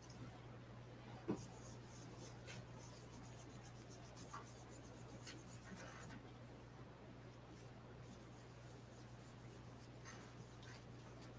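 Faint scratching of a small blending brush rubbing ink over embossed cardstock, with a few light ticks and one sharper click about a second in, over a steady low hum.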